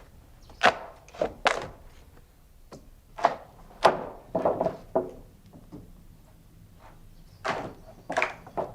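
Heavy wooden thunks and knocks, about ten at irregular intervals, with a pause of nearly two seconds before the last three: sawn timber being struck or handled.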